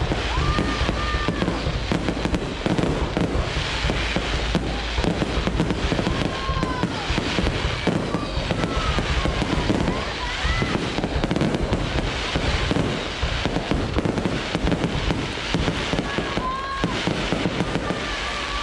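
Fireworks display: a dense, continuous barrage of bangs and crackling bursts, with short whistles rising and falling now and then.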